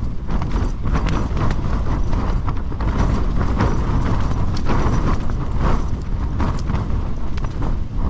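Strong wind gusts buffeting a tent: a continuous low rumble with the tent fabric flapping and snapping irregularly.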